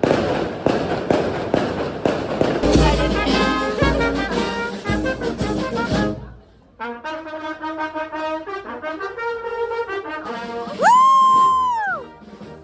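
Firecrackers crackling over a brass band; the crackling stops about six seconds in and the band plays on. Near the end one loud brass note slides up, holds and falls away.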